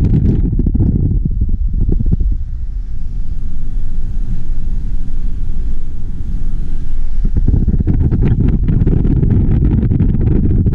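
Wind buffeting the microphone: a loud, gusty low rumble that eases for a few seconds in the middle and then returns.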